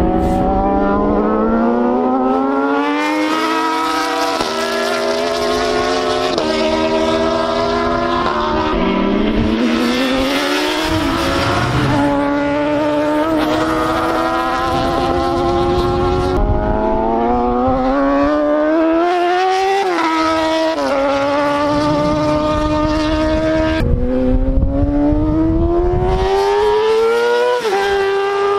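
Racing sport motorcycle engines revving high, climbing in pitch through each gear with a sudden drop at every shift, again and again.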